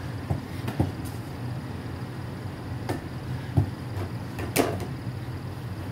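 About half a dozen scattered knocks and thumps, the loudest a low thump past the middle and a sharp knock about a second later, over a steady low hum.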